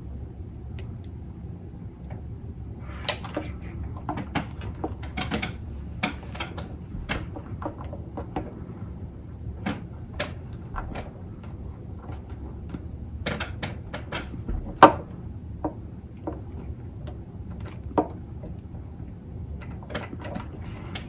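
Irregular small clicks and light knocks of a hand crimping tool and wire connectors being worked on a tabletop, over a steady low hum. The sharpest knock comes about two-thirds of the way through.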